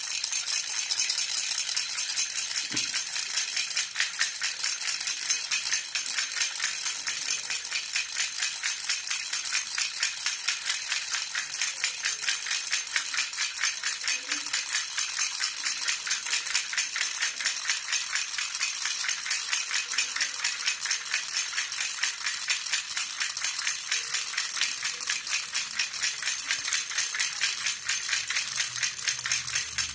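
A jhunjhuna baby rattle shaken steadily in a fast, even rhythm, giving a continuous bright jingle.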